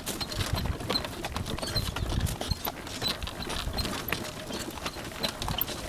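Horse-drawn cart on a dirt track: the horse's hooves and the cart rattling and knocking in a steady run of clicks.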